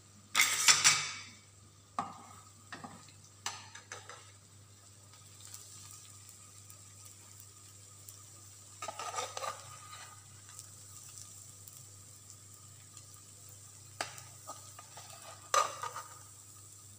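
Kitchen utensils scraping and knocking against a plate and a frying pan as creamy sauce is spread and spooned onto the chicken: a loud scrape about half a second in, then scattered short knocks and scrapes, a burst around the middle and another near the end, over a faint steady sizzle.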